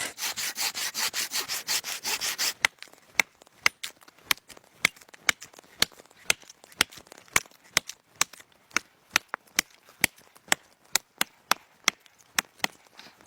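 Hand saw cutting into pine wood with quick, even strokes, about five a second. After about three seconds the strokes stop and a run of sharp clicks follows, two or three a second.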